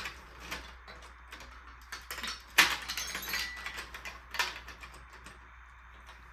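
Marbles clattering through a toy marble run: scattered clicks and rattles, with a sharp clack about two and a half seconds in and another a couple of seconds later.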